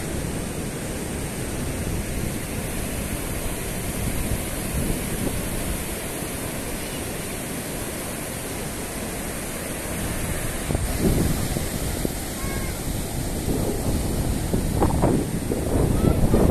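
Surf breaking and washing up a sandy beach, a steady rushing noise, with wind buffeting the microphone. The wind gusts harder in the last few seconds.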